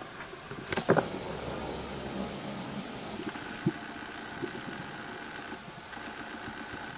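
Underwater recording of a steady engine drone, typical of a distant boat motor carried through the water. A loud cluster of clicks and knocks comes about a second in, and a single sharp knock follows a few seconds later.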